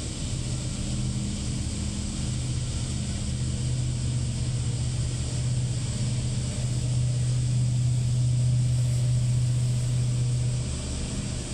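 A low, steady engine hum that swells in the second half and eases again near the end.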